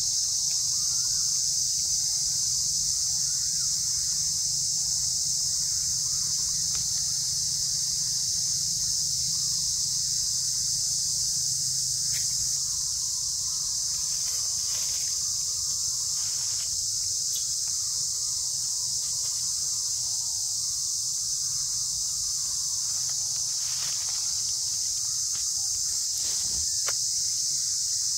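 A steady, high-pitched insect chorus drones without a break, with a few faint clicks or rustles in the second half.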